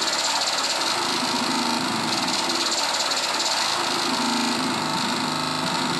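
Hand-built circuit-bent analog noise synth playing a loud, harsh buzzing drone with a fast flutter running through it, its pitch shifting as its knobs are turned.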